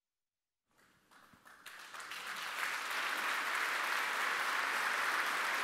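Audience applause that begins about a second in from silence and builds over the next two seconds to a steady level.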